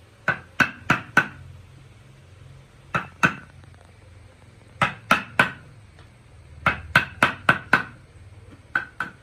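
Hammer striking a wood chisel, chiselling into a piece of timber: sharp knocks in quick runs of two to five blows with short pauses between.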